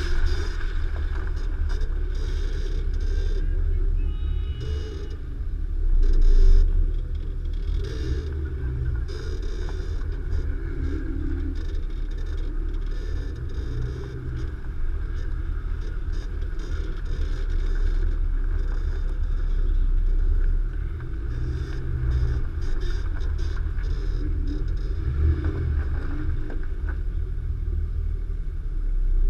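Nissan Xterra Pro-4X's 4.0-litre V6 running at low speed over rough off-road terrain: a steady low rumble with scattered knocks and rattles, swelling briefly about six seconds in and again near the end.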